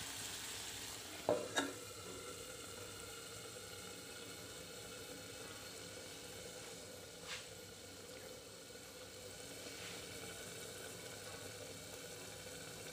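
Fish chutney sizzling faintly in a kadai, with two metal clanks about a second and a half in as a metal lid goes on. It then cooks down quietly under the lid to dry out, with one more light click later.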